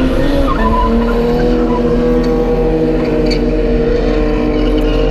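Drift car sliding sideways with its engine held at steady high revs and the rear tyres squealing.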